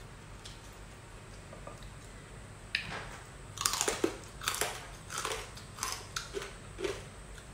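Crispy pork belly skin (pork kawali) being bitten and chewed close to the microphone. A first sharp crunch comes about a third of the way in, the loudest crunches follow just after, then steady chewing crunches about twice a second.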